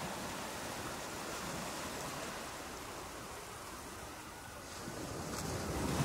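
Ocean waves washing onto a beach, a steady rushing hiss that swells louder near the end as a wave comes in.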